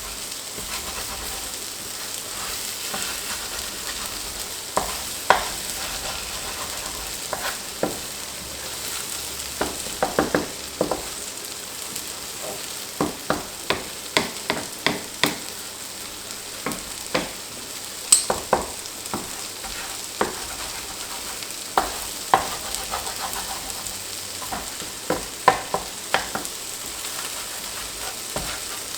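Fried rice sizzling steadily in a hot pan while it is stirred, with a utensil knocking and scraping against the pan many times at an irregular pace.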